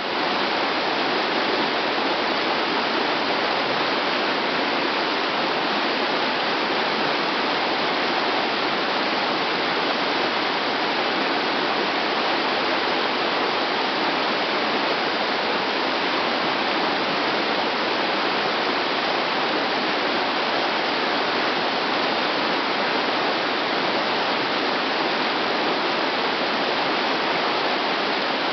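Creek water rushing steadily, an even rush with nothing standing out above it.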